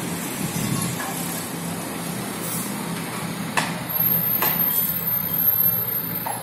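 Construction-site machinery running steadily with a low engine hum, and two sharp knocks about three and a half and four and a half seconds in.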